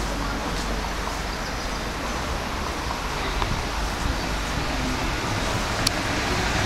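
Steady city street noise, a hum of traffic on the pavement, with a single sharp click about six seconds in.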